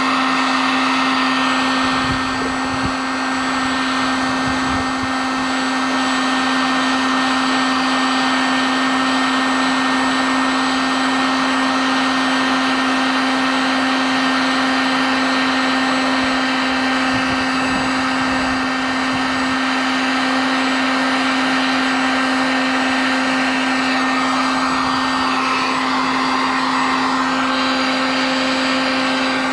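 Electric heat gun running steadily, its fan giving an even hiss over a constant hum, as it melts HDPE plastic to weld a patch onto a plastic boat hull.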